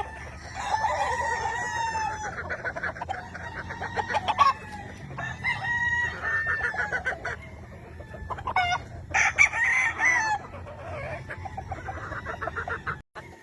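Gamefowl roosters crowing and chickens clucking, several calls overlapping, with louder calls around four and a half and nine to ten seconds in.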